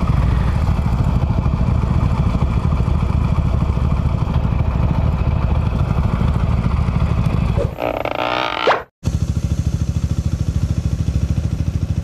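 Harley-Davidson Iron 883's air-cooled Evolution V-twin idling with a steady low, rapid thumping. About eight seconds in the engine sound drops away under a brief rising whoosh, cuts out for a moment, then the idle comes back.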